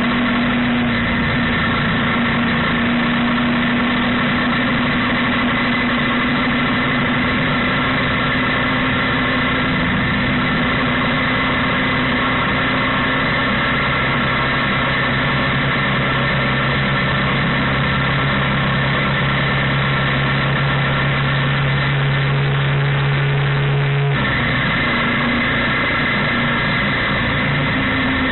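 Motorcycle engine running steadily under way, heard through an action camera's built-in microphone, over a steady rushing noise. The engine note changes abruptly near the end.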